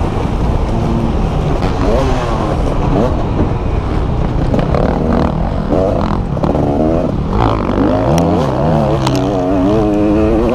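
Motocross bike engine heard from on board, revving up and down as the rider works through the gears, with wind rushing over the microphone. Two sharp ticks near the end.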